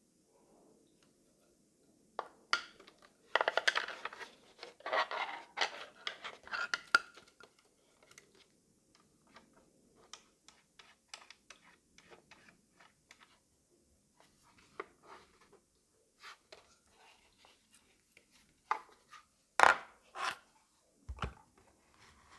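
Handling noise from a plastic-cased mini LCD projector being turned over in the hands: scattered clicks, scrapes and rubbing against the casing and lens ring, busiest in the first few seconds. Near the end come a few sharper snaps and a single low thump.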